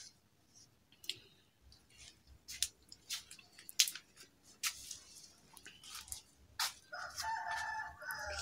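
Scattered sharp clicks and soft rustles, then a drawn-out call with a steady pitch starting about seven seconds in.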